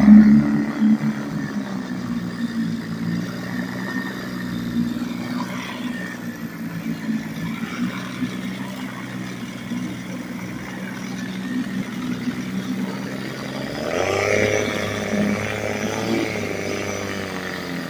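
1947 Elgin 3.5 hp two-stroke outboard motor running steadily in a test tank, its carburetor freshly rebuilt. About fourteen seconds in the throttle is opened and the engine's pitch rises for a few seconds, then settles back to the steady run.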